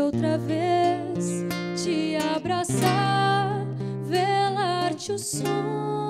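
A woman singing a melody with vibrato, her phrases breaking twice, accompanied by a fingerpicked nylon-string acoustic guitar.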